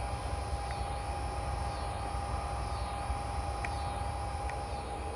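Outdoor field ambience: a steady low rumble under faint insect chirping, with a thin steady tone and a few faint ticks.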